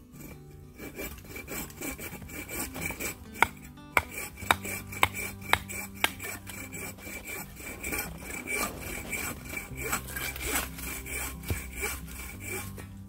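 Kindling being split with a hatchet on a wooden chopping block: wood knocks and scraping, with a run of five sharp knocks about half a second apart in the middle. Soft background music plays underneath.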